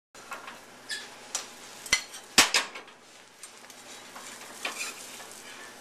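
Cooking utensils knocking and scraping against a pan while omelet eggs fry, with a few sharp clanks. The loudest two clanks come close together about two seconds in, and a steady sizzle fills in toward the end.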